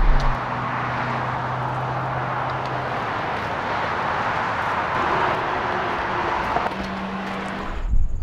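Wind and road rush of a car driving at speed with the window open, with a low hum underneath that changes pitch a few times. It cuts off suddenly near the end.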